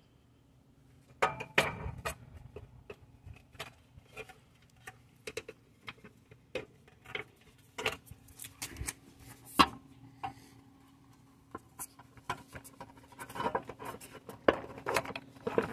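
Scattered clicks and knocks of hard plastic and metal parts being handled as a pull-start housing is moved about and lined up on a small diesel engine, with one sharper knock about ten seconds in. A faint steady low hum runs underneath.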